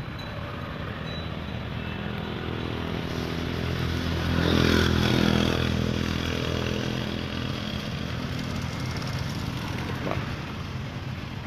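A motor vehicle's engine passing by, growing louder to a peak about five seconds in and then fading away.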